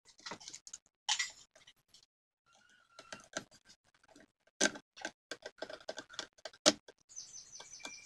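Irregular clicks and light knocks of a table fan's plastic motor mount being handled and fitted, then a screwdriver turning a screw into the motor housing, with a brief steady tone about two and a half seconds in.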